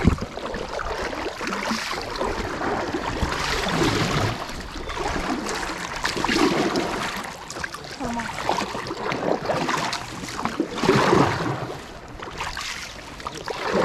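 Double-bladed kayak paddles dipping and pulling through river water beside an inflatable kayak, a splashing stroke every second or two over a steady wash of water.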